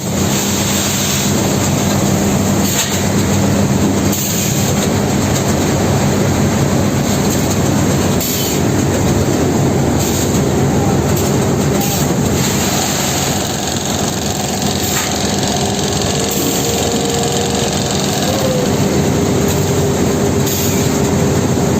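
Automatic bagging scale with an inline bag-closing sewing machine running: a steady mechanical din with a low hum and a sharp knock every few seconds.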